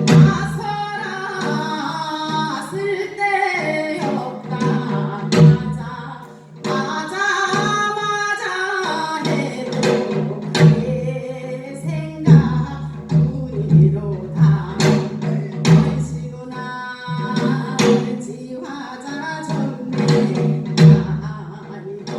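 Gyeonggi minyo folk singing: a solo voice sings a wavering, ornamented melodic line to a janggu hourglass drum. The janggu's sharp strokes mark the rhythmic cycle.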